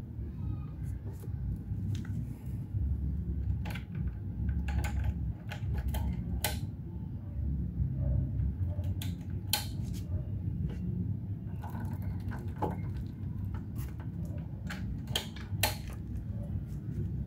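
Irregular metallic clinks and taps of tools and engine parts being handled during engine assembly, over a steady low rumble.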